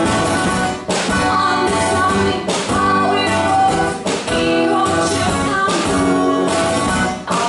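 Live song: singing over strummed guitars, sung in phrases with short breaks between them.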